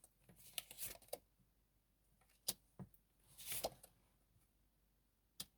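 Tarot cards being handled and laid out on a table: a few faint rustles and soft taps, with a sharper tap about halfway through and another near the end.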